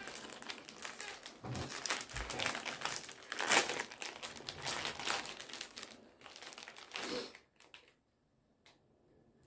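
Wrapper of an ice cream cone crinkling as it is torn open and peeled off, loudest about three and a half seconds in and stopping after about seven seconds.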